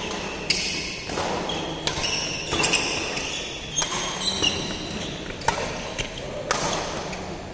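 A badminton rally: a series of sharp racket strikes on the shuttlecock, roughly one a second, with short high sneaker squeaks on the court mat between them.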